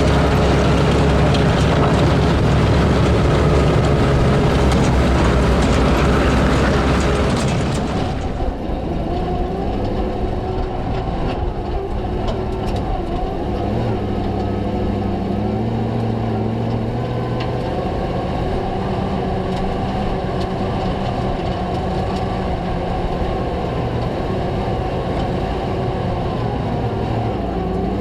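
Ford V8 engines of WW2 Universal Carriers running, with the clatter of steel tracks on gravel loud for the first eight seconds or so. The sound then changes abruptly to quieter engine running whose pitch rises and falls, with less track clatter.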